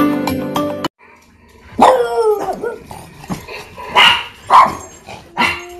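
A short stretch of music that cuts off about a second in, then a French bulldog barking four times in loud bursts, the first with a falling pitch.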